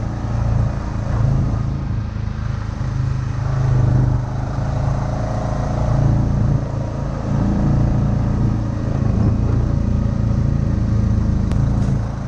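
ATV engine running steadily while the quad rides along a trail, its note holding fairly even with small rises and dips as the throttle changes.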